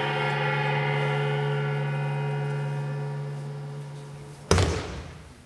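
A long, steady pitched tone with many overtones, fading slowly over about five seconds. About four and a half seconds in comes a single sharp thud, the loudest sound here, as a thrown partner lands on the mat in an aikido throw.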